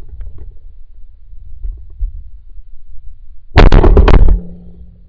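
A 12-gauge shotgun blast about three and a half seconds in, very loud and clipped, with several sharp cracks packed into under a second, over a steady low rumble of wind on the microphone.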